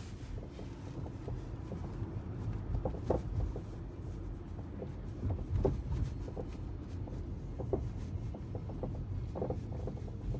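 Rattling inside the cabin of an electric car with few kilometres on it: irregular short clicks and knocks, in small clusters, over a steady low road rumble.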